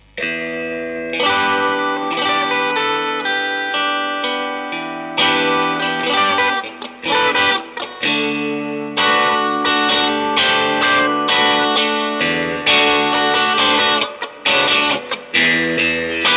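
Fender Japan ST-62 Stratocaster electric guitar with Lollar '64 single-coil pickups, played through a Fender Blues Jr amp with no pedals and not much gain, picked up by a mic on the amp blended with room sound. Sustained chords ring out, broken by a few short stops.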